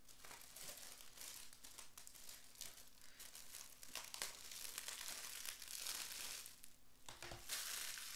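Plastic shrink-wrap being torn and peeled off a DVD case, crinkling and crackling irregularly.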